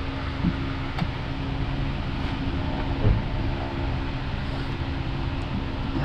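Honda Civic's four-cylinder VTEC engine idling steadily, with a few faint clicks.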